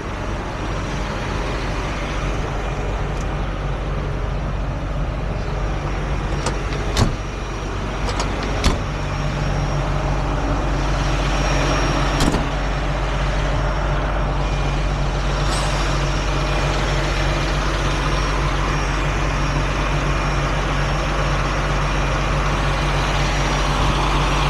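Heavy tow truck's diesel engine running steadily with road noise, heard while driving with a semi in tow. A few sharp clicks or knocks sound about seven, nine and twelve seconds in.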